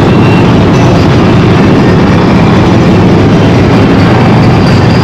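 Harley-Davidson V-twin motorcycle engine running steadily on the move, under a steady rush of wind and road noise.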